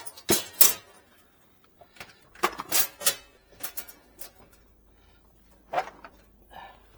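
A series of knocks and clatters of objects being moved and set down, loudest in the first second and in a cluster about two and a half to three seconds in.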